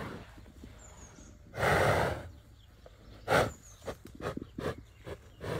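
A bull snorting: one long, forceful blast of breath about two seconds in, a shorter sharp one about a second later, then a run of short, quick breaths, about three a second.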